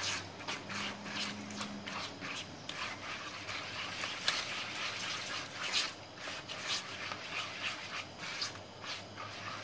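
A hand squeezing and stirring a runny batter of eggs, yogurt, oil and semolina in a plastic bowl, giving irregular wet squelches and smacks.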